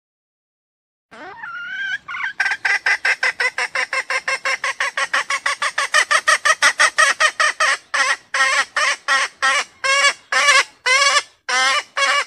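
Junglefowl hen calling in breeding condition, the call hens use to summon a cock. After a short silence a rising note opens a rapid run of short calls, about five a second, which slows near the end into separate calls.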